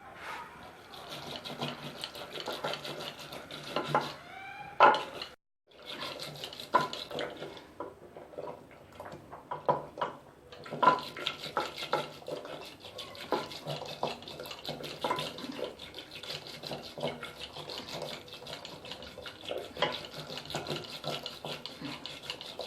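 Cooked fenugreek leaves being mashed in a pressure cooker: a utensil pressing, scraping and knocking against the pot in an irregular run of wet squelches and clinks, with a brief break about five seconds in.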